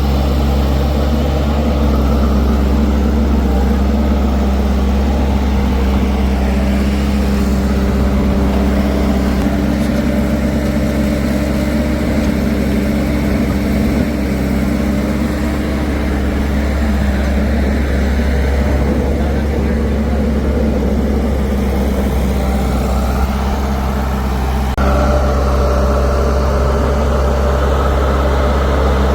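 Heavy diesel engine running steadily at a constant speed, with a deep, even hum. About 25 seconds in, the tone shifts suddenly and the sound grows a little louder.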